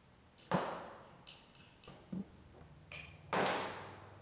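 Allen wrench and screws clinking against the metal side cover of a 100cc two-stroke bicycle engine as the cover is unscrewed: about five sharp metallic ticks and taps with short ringing, the one about half a second in and the one near the end louder.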